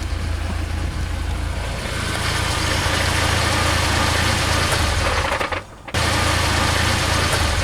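UAZ Patriot engine idling with a rattling knock from underneath, in the area of the gearbox; the owner hears it as a "дыр-дыр-дыр" that stops when the clutch is pressed and grows louder under extra load. The sound cuts out briefly a little over five seconds in and then resumes.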